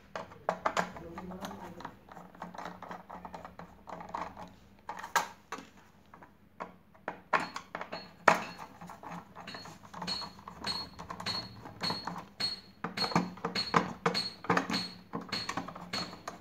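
Screwdriver working the screws out of a sandwich maker's metal heating plate: a string of small clicks, taps and metallic clinks, thicker in the second half.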